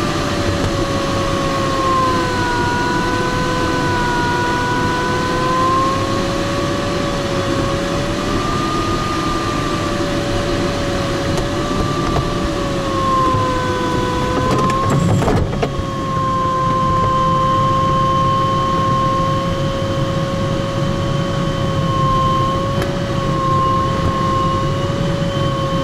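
Inside a glider cockpit in flight: a steady rush of airflow over the canopy under an audio variometer's continuous tone, which drifts slowly up and down in pitch as the rate of climb or sink changes. A brief knock comes about fifteen seconds in.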